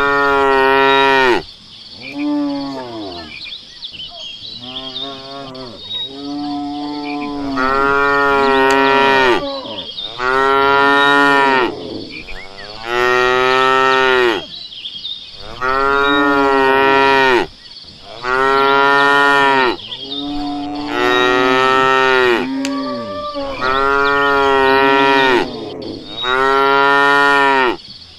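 Cattle mooing over and over: long moos of a second or two each, every two to three seconds, each rising then falling in pitch, with fainter moos between the loud ones.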